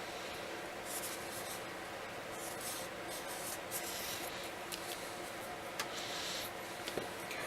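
Tracing a line on a cardboard template: soft scratchy strokes of writing on cardboard, in several short bursts, over a faint steady hum.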